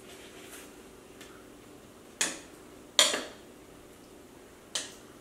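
Metal kitchen tongs knocking against the slow cooker's crock while turning chicken breasts in the sauce: three sharp clacks with a short ring, the middle one loudest, over a faint steady hum.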